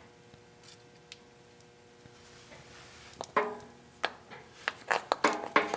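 Quiet workshop room tone with a faint steady hum for about three seconds, then about half a dozen short, sharp clicks and knocks, some with a brief ring, over the last two and a half seconds.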